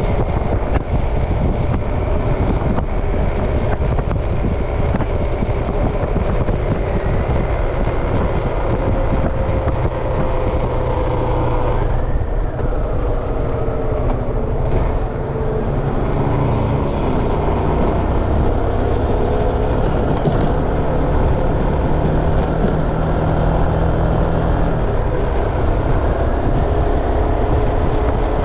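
Steady wind and road noise from a moving vehicle, with the engine's faint hum drifting slowly up and down in pitch.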